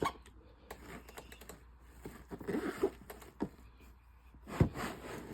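Handling noise from a snake enclosure being closed: scattered light clicks and rustling, with one sharp knock about four and a half seconds in.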